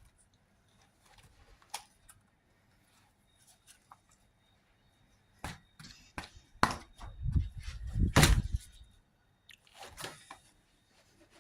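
Slime worked by hand, making sticky clicks, crackles and pops. A louder run of squishing and popping comes in the middle, as air bubbles in the slime burst.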